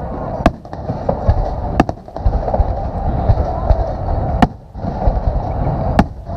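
Fireworks display: four sharp bangs of shells bursting, spaced irregularly, over a continuous rumble and crackle.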